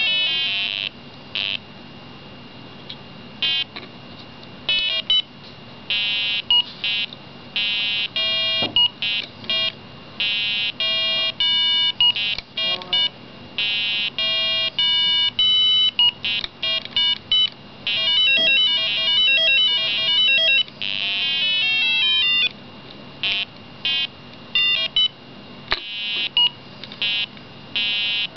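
Electronic beeps from a microcontroller-driven buzzer in a Simon Says-style memory game: short high-pitched tones at several different pitches, played in quick runs with pauses between, with a warbling trill of tones about two-thirds of the way through.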